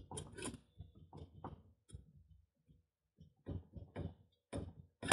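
3D-printed plastic collar and sleeve being worked off a steel pipe by hand: a run of light plastic clicks and knocks with short pauses between them, the loudest knock at the end.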